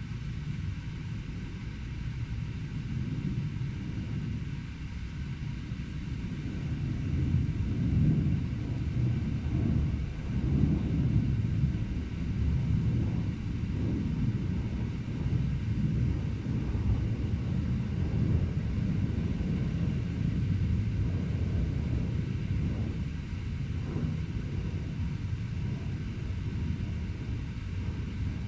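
Low, steady rumble of urban traffic, swelling a little in the middle and then easing.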